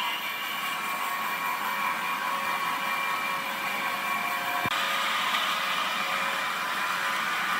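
Steady mechanical whirring of wood-processing machinery running, with a sharp click and an abrupt change in the noise about two-thirds of the way through.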